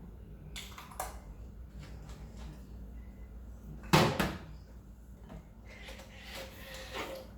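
A door or lid shutting with one solid thump about four seconds in, amid lighter clicks and handling rustles.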